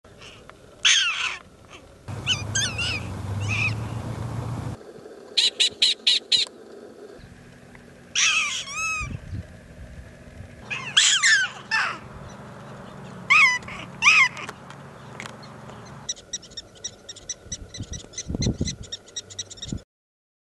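Prairie dogs calling: short, sharp chirps, each dropping in pitch, given singly and in quick pairs and bursts. Near the end comes a rapid chatter of about six chirps a second.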